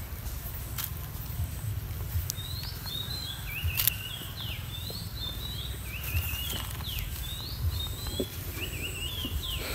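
Repeated high chirping calls, short quick warbling phrases coming about every second and a half from a couple of seconds in, over a steady low rumble.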